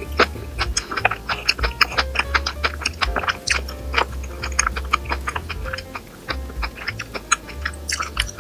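Close-up eating sounds: a dense run of short, crisp clicks and crunches of chewing and utensils, over background music with a steady bass.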